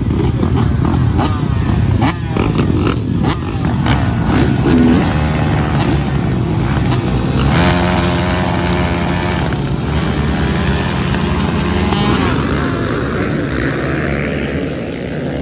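Motocross dirt bike engines running and revving, the pitch rising and falling as the throttle opens and closes.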